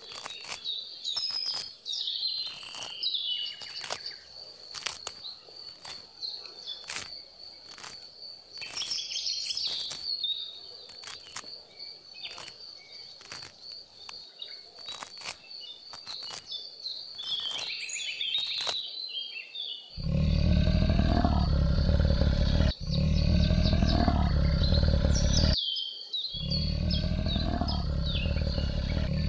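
Birds chirping over a steady high insect tone, with many sharp clicks. About two-thirds of the way through, a much louder, deep animal call takes over, rising in pitch and repeating every couple of seconds.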